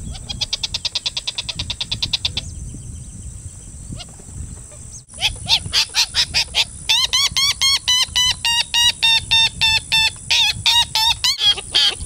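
Wattled jacana calling. After a fainter, fast ticking chatter in the first couple of seconds, it gives a loud, rapid series of sharp, scratchy repeated notes, several a second, from about five seconds in until near the end: the alarm chatter of a jacana disturbed near its nest.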